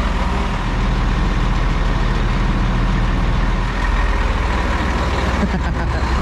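Diesel engine of a truck-chassis toterhome idling steadily.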